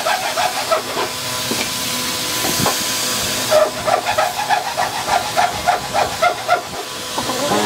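Compressed-air spray gun with a gravity-feed cup hissing steadily as it sprays a coating onto bare wood. A quick repeated mid-pitched pulsing, about four a second, runs alongside it for much of the time.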